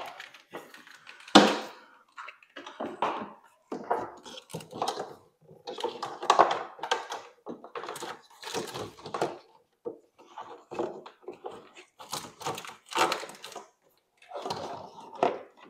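Wire harness and plug connectors being handled and pulled through a golf cart's molded plastic body: irregular rustling, scraping and clicking, with one sharp knock about a second and a half in.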